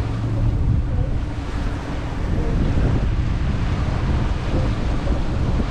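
Outboard engine of a fishing boat running at trolling speed, with steady wind buffeting the microphone and the rush of the wake.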